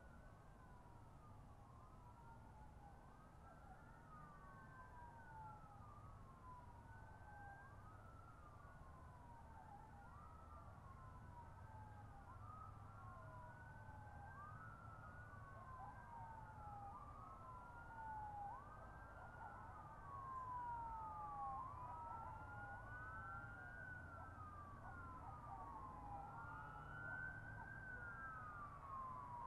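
Emergency vehicle sirens wailing, their pitch sweeping up quickly and sliding down again over and over, with more than one siren overlapping, growing slowly louder over a low rumble.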